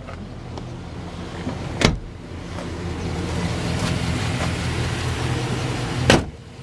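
A steady mechanical hum inside a pickup's cab that swells over the first few seconds, with two sharp clicks, one about two seconds in and one near the end.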